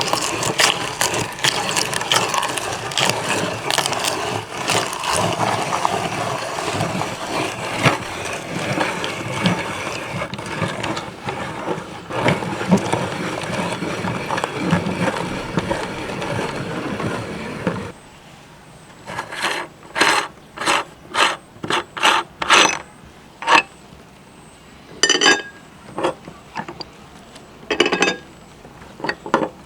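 Meat grinder grinding cucumber: a continuous crackling, crunching churn that stops abruptly about two-thirds of the way through. A series of separate sharp clicks and knocks follows.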